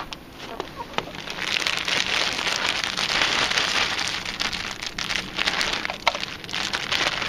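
Plastic salad-mix bag crinkling and rustling as it is shaken out, with shredded lettuce spilling onto the ground; the rustling grows louder about a second and a half in.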